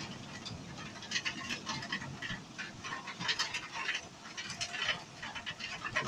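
Rain pattering: many irregular close drops tapping, over a soft hiss of steady rain.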